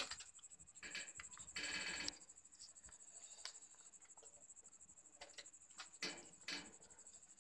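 Faint scattered taps and knocks as a long stick and a metal snake hook are moved among pots and containers on a floor, with a short rustling hiss about one and a half seconds in.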